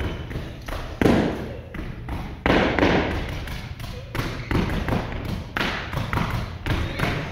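Stepping on a stage: heavy thumps and lighter taps on the stage floor, irregularly spaced, each loud hit ringing on in the large hall.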